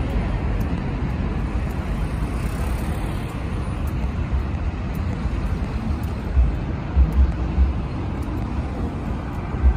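Road traffic: cars passing on a multi-lane road in a steady wash of engine and tyre noise. From about six seconds in there are several short low thumps on the microphone.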